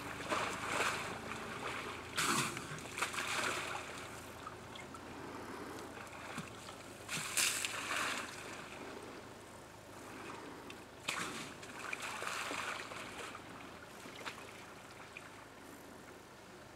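African elephant drinking at a waterhole, its trunk in the water, with water splashing and trickling in irregular bursts a few seconds apart.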